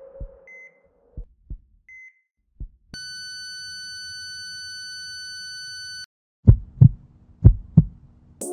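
Heart-monitor sound effect: two short beeps with faint heartbeat thumps, then a steady flatline tone for about three seconds that cuts off sharply, the tone that signals a stopped heart. Near the end come two loud double heartbeat thumps.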